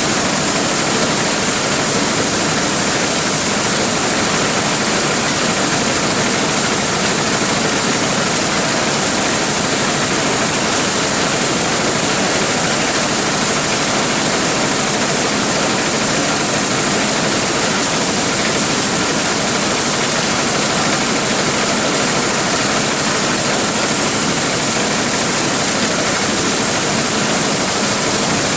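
Large corn sheller running steadily, a loud, unbroken mechanical noise with a strong high hiss.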